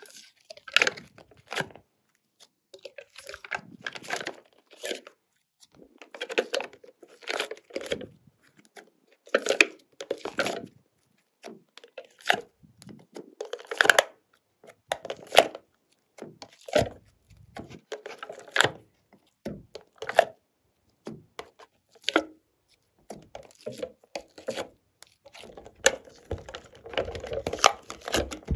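Glossy slime being squished and stretched by hand, giving a string of short, crackly, tearing squelches every second or two.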